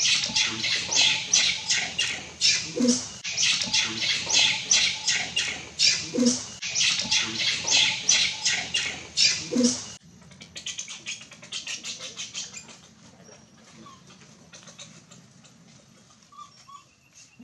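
Rapid, high-pitched animal chattering calls, the same short stretch repeating about every three and a half seconds. They cut off abruptly about ten seconds in, and fainter scattered ticks follow.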